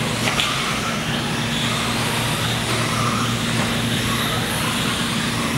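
Small electric motors of 1/18-scale Losi Mini-T RC trucks whining and their tyres running on the dirt track, over a steady hum, with a brief tick about half a second in.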